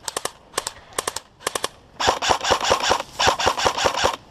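Airsoft rifles firing: sharp shots in quick groups of two or three for the first second and a half, then a denser, louder stretch of rapid fire for the last two seconds.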